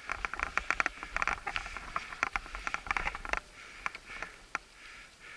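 Irregular crunching and crackling of packed snow underfoot, a quick run of sharp clicks that thins out after about three seconds.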